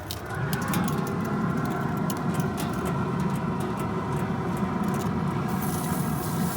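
Steak searing on hot GrillGrate panels directly over a pellet grill's open firepot: sizzling with many sharp crackles and pops, over the steady rush of the fire. The crackling thins out near the end as a steady high hiss takes over.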